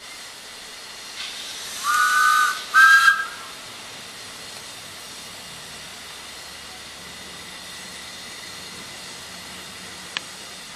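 Miniature steam locomotive's whistle blown twice about two seconds in, two short blasts, the second slightly higher in pitch, followed by a steady hiss of steam.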